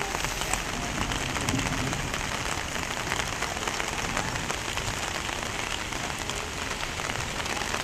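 Heavy rain falling steadily: a dense, even hiss made of many small drop impacts.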